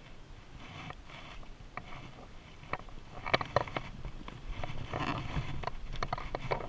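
Creek water splashing and sloshing close by as the angler wades and handles a fish. Sharp splashes and knocks come in a cluster from about three seconds in.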